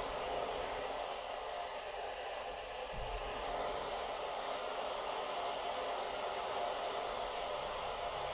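Handheld gas torch flame hissing steadily as it heats a seized stud in an aluminium cylinder head.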